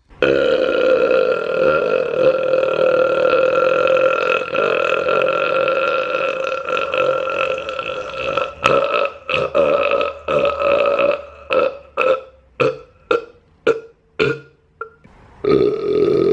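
A man belching: one long continuous belch held at a steady pitch for about eight seconds, then a quick run of about a dozen short belches, and another long belch starting near the end.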